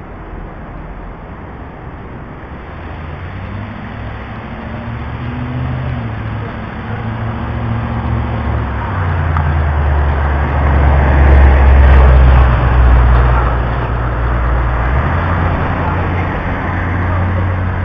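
A passing motor vehicle with a deep, booming low rumble that holds a few steady pitches and jumps between them. Over road noise it grows louder to a peak about two-thirds of the way through, then eases off.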